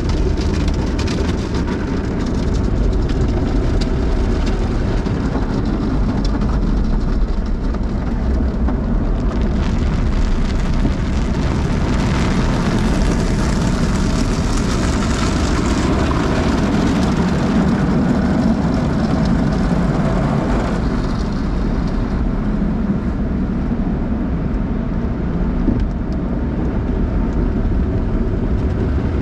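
Automatic car wash heard from inside the car: water and soap spraying and drumming on the windshield and roof over a steady low rumble. The spray hiss grows louder and brighter from about ten seconds in, then eases again about twenty seconds in.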